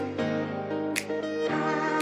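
Background music: sustained chords with a sharp click-like beat about once a second.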